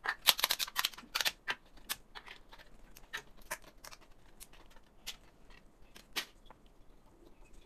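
3D-printed PLA parts being snapped off their raft: a quick run of sharp cracks and clicks in the first second and a half, then scattered single clicks.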